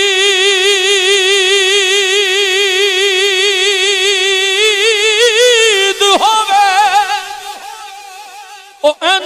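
A male naat reciter's voice holds one long high note through a microphone, with a fast, even vibrato. About five seconds in it bends up and breaks into quick ornamented turns, then fades away, and a new sung phrase starts just before the end.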